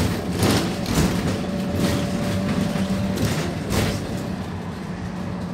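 MAN D0836 six-cylinder diesel of a Van Hool NewA309 city bus running steadily under way, heard from inside the passenger cabin. Several short, sharp rattles or knocks break through the drone.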